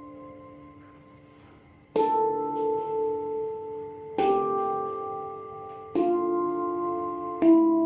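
Handpan played slowly: a note rings out and fades, then four single notes are struck about two seconds apart, each ringing on with a bell-like sustain. The last strike, near the end, is the loudest.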